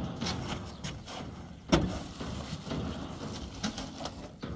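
A large plastic-wrapped bundle being shifted about on the bed of a pickup truck: rustling and scattered knocks, with one sharp, loud thump a little under two seconds in.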